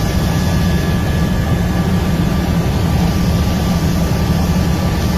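Loud, steady engine drone, strongest in the low end, with faint steady whine tones over it.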